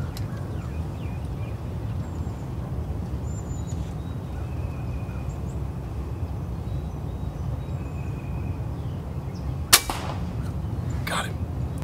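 A single sharp crack of an AirForce air rifle firing, about ten seconds in, over a steady low background rumble. A second, fainter sharp sound follows a little over a second later.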